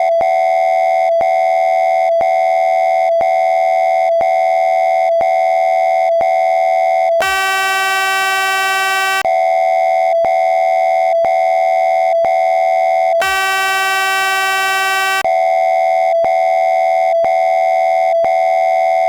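Electronic emergency-alert attention signal: a steady pitched tone with a short break about once a second, replaced twice by a harsher, buzzier tone lasting about two seconds each. It is the warning tone that comes before an emergency alert message.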